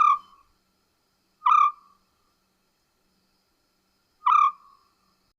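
African scops owl calling: three short, purring trilled notes, the second about a second and a half after the first and the third nearly three seconds later.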